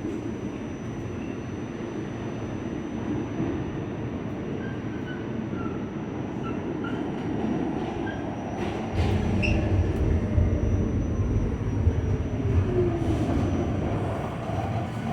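MTA R46 subway car running on the track, with a steady rail rumble that grows much heavier about nine seconds in. A few faint, short high squeals come through earlier on.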